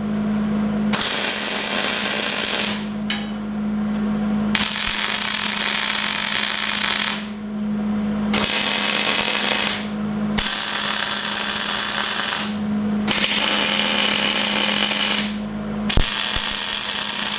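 MIG welder tack-welding steel mount plates: about six bursts of arc crackle and hiss, a couple of seconds each with short pauses between, over a steady low hum.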